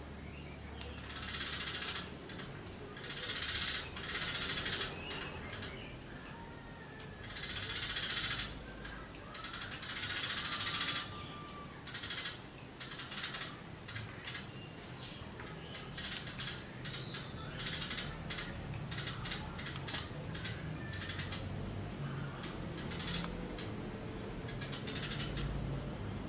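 Eurasian tree sparrow calling in fast chattering bursts, about four long rattling runs of a second or so each, then a string of short chirps.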